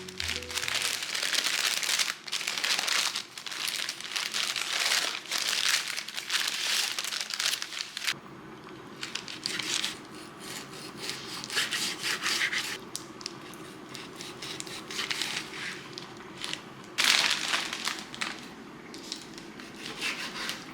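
Rustling and crinkling of material being handled, in irregular bursts that are busiest in the first half and again about three quarters of the way in. A faint steady hum sits underneath from about eight seconds in.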